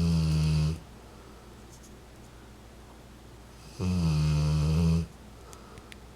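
Rottweiler snoring in its sleep, deep and pitched, about one snore every four seconds. One snore ends just under a second in, and another lasts about a second from about four seconds in.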